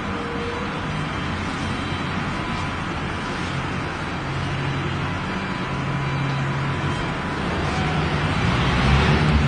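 Steady background noise: an even hiss with a low hum underneath, growing a little louder near the end.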